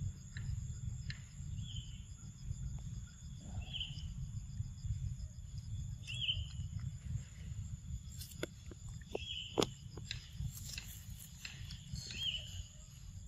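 Forest ambience: a steady high insect buzz, with a short high chirp every two to three seconds and a few sharp clicks in the second half, over a low rumble.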